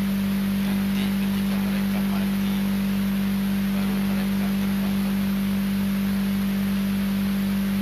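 A loud, steady, unchanging low hum at a single pitch, likely electrical hum in the sound system, with the lecturer's speech faint beneath it.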